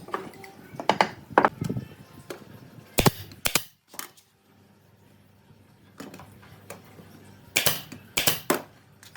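Sharp knocks and clicks of hand work on wood in a workshop, coming irregularly in clusters: a few about a second in, two around three seconds in, and three more near the end.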